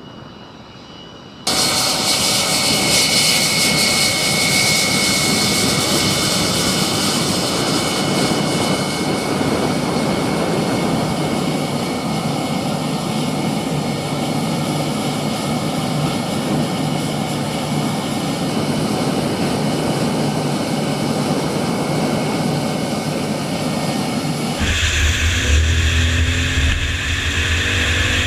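Lockheed U-2's single turbofan jet engine running loud, a steady hiss with a high whine, cutting in suddenly about a second and a half in. Near the end it switches abruptly to a deeper rumble with shifting, gliding tones.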